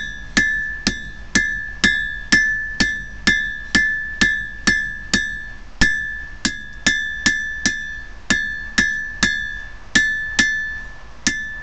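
Hammer blows on a 130-pound anvil while forging a hot file into a fire striker, about two blows a second in a steady rhythm. Each blow rings out brightly and the ring carries on until the next strike.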